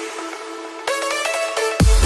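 Electronic dance music: a synth melody that thins out for a moment, then a heavy beat with deep bass drops in near the end.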